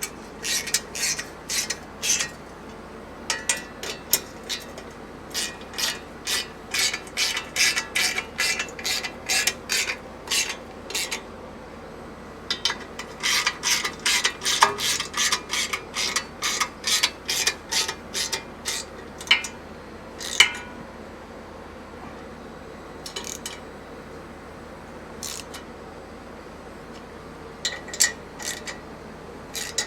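Hand ratchet wrench being worked on a fastener: runs of clicking strokes at about two a second, stopping for a moment about halfway through, then only a few scattered strokes later on.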